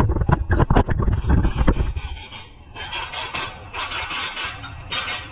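Hand-tool work on a car's front suspension: a run of metal knocks and clatter, then, from about halfway in, short scraping strokes repeated a little over once a second.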